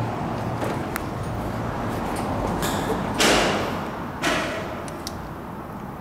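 Two loud echoing bangs about a second apart, with a few light clicks before them, from footfalls on steel grating stairs in a large, reverberant metal structure.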